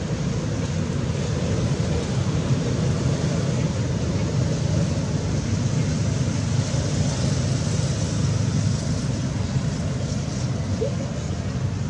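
Steady outdoor background noise: an even low rumble with a hiss above it, with no clear animal calls.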